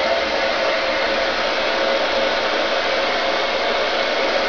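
Hair dryer running steadily while drying hair, an even rush of air with a faint steady hum in it.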